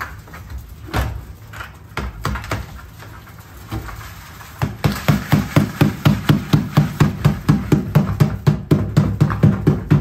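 Gloved hand slapping the bottom of an upturned plastic 5-gallon bucket to knock wet, soupy concrete mix out of it: a fast, even run of about four to five blows a second from about five seconds in, after a few scattered knocks and scrapes as the bucket is tipped.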